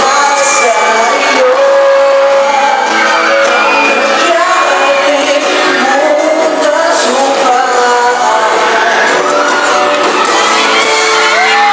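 Live band playing a pop song with singing, loud and thin with almost no bass, with the crowd shouting over it.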